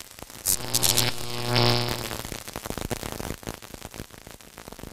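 Logo-intro sound effect: electric crackling, and a low synthesized buzzing tone that swells for about a second and a half before fading into sparse crackles.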